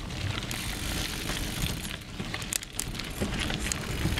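Mountain bike rolling fast down a dirt singletrack: steady tyre noise on the dirt with a low rumble, and scattered sharp knocks and rattles from the bike as it runs over bumps and roots.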